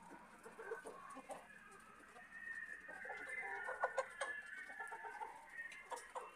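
Flock of laying hens clucking, with many short calls overlapping and growing busier about halfway through. A few sharp taps come about four seconds in.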